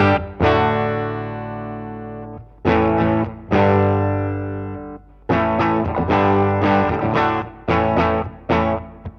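Distorted electric guitar, a Fender Stratocaster played through a Line 6 Helix amp-and-cab model. A chord rings out and fades, two more chords are let ring, then from about halfway a run of short, rhythmic chord stabs.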